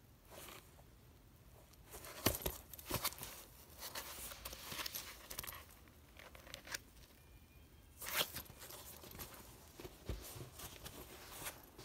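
Rustling, crinkling handling noise from a pebbled-leather handbag being turned and flexed by gloved hands, with small clicks. It comes in bursts, the loudest about two seconds in and again about eight seconds in.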